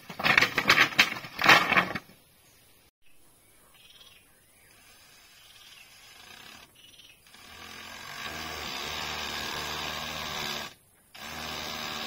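A quick run of loud knocks or strokes, then a small electric power tool motor running steadily for about three seconds. It stops briefly and starts again.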